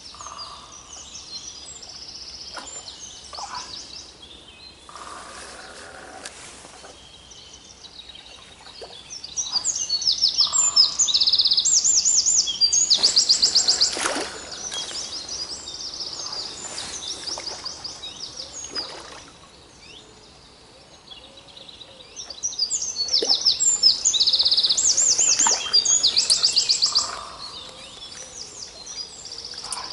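Songbirds singing: one close bird sings two loud phrases of rapid, high repeated notes, one about ten seconds in and the other about twenty-three seconds in, with quieter song in between.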